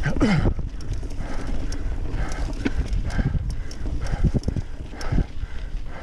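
Mountain bike riding over rough singletrack, with tyres and frame clattering in irregular knocks. A short tone falls in pitch in the first half-second.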